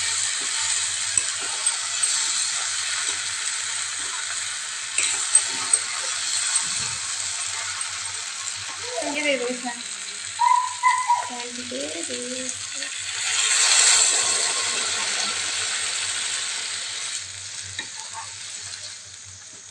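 Potatoes and chickpeas sizzling in hot oil in a kadai while a metal spatula stirs and scrapes them, with a few clinks. The sizzle swells loudly about two-thirds of the way through as water goes into the hot pan, then settles to a quieter simmer near the end.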